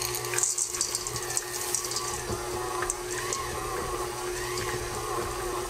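KitchenAid Classic Plus stand mixer running steadily at stir speed, its flat beater folding chocolate chips into cookie dough. Light clattering in the first couple of seconds as the chips drop into the steel bowl.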